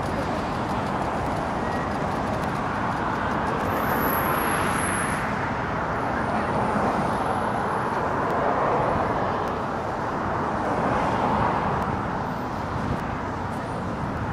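Road traffic: cars passing on the street beside the walkway, a steady hum of tyre and engine noise that swells several times as each car goes by.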